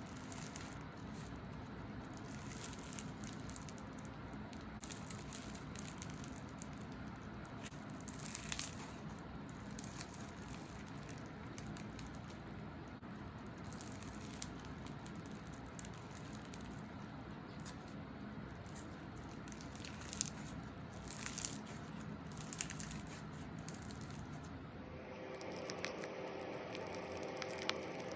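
Slime being squished, stretched and pressed by hands: a continuous sticky crackling with many small clicks and occasional louder pops. Faint steady tones join near the end.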